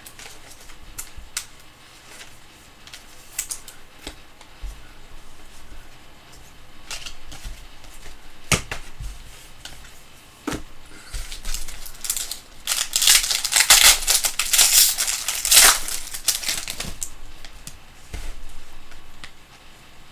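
Foil trading-card pack wrapper being torn and crinkled, with scattered clicks and taps of cards being handled. The crinkling is loudest and densest in a stretch of several seconds past the middle.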